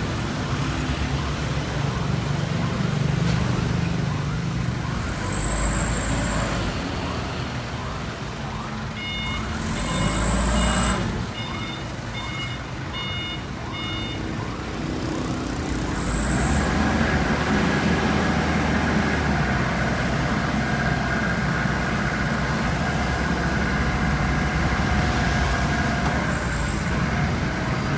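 Heli diesel forklift engine running with road traffic passing. About a third of the way in there is a short run of evenly pulsed electronic beeps. In the second half a steady whine, slowly rising, comes in as the hydraulics lift the mast and bale clamp.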